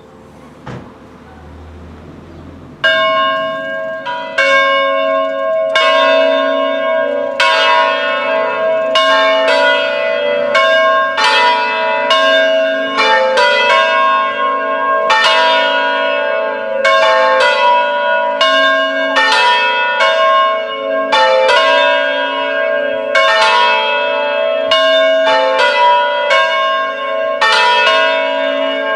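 Three church bells tuned in A, cast by Angelo Bianchi in 1945, rung a distesa: swinging full circle, with strokes starting about three seconds in and then following each other in an irregular, overlapping peal.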